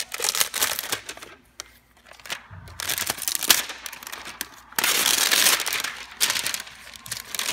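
Clear plastic sleeve crinkling and rustling as it is peeled off a laptop, in irregular bursts, the longest and loudest about five seconds in.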